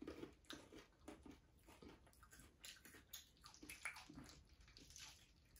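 Faint, irregular crunching and wet mouth clicks of people chewing candy-shelled, caramel-filled white chocolate candies.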